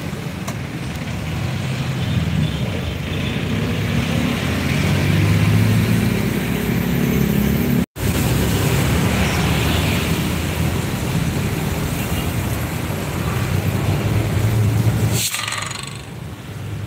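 Low rumble of road traffic that swells and fades twice, then drops off sharply near the end.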